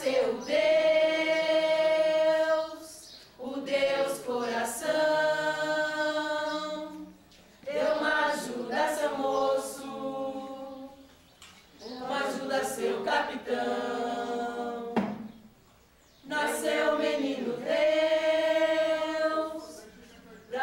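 Folia de Reis singers chanting a verse together in several-voice harmony: five long held phrases of about three seconds each, with short breaks between them.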